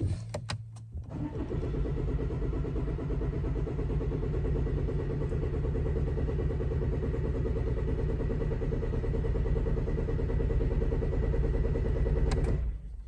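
Range Rover Evoque engine cranking on the starter for about eleven seconds without firing, then stopping abruptly, after a few clicks at the start. The fuel system is airlocked after a fuel filter change, so the engine won't start.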